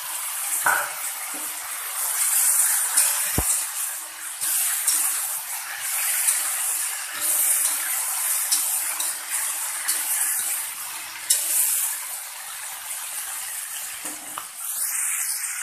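Cauliflower and yam pieces sizzling in hot oil in a wok as they are stirred and turned with a metal spatula, a steady hiss that swells and eases with each toss. Occasional clicks of the spatula on the pan, with one sharp knock about three and a half seconds in.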